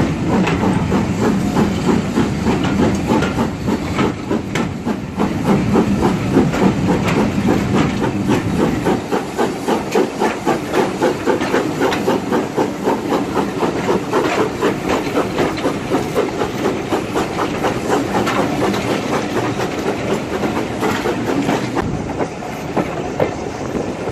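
Two-cylinder BR Standard Class 4MT tank steam locomotive working a train, with steam hiss and an even chuffing exhaust at about two beats a second.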